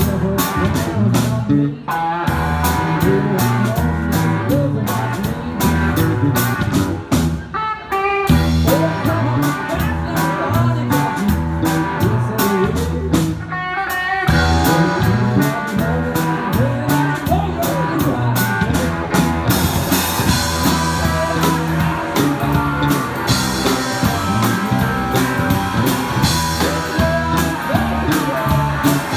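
Live band playing: two electric guitars through amps over a drum kit, with a steady drum beat. The music thins out briefly twice, about seven and fourteen seconds in, and cymbals come up loud over the last third.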